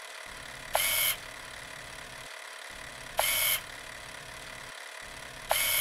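Sound effect for an animated logo: three short, bright hissing bursts, each with a faint ringing tone, repeating about every two and a half seconds over a steady low hum.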